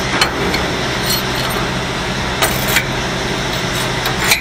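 Electric welding arc running steadily with a continuous crackling hiss, a low steady hum underneath and a few sharp pops scattered through it.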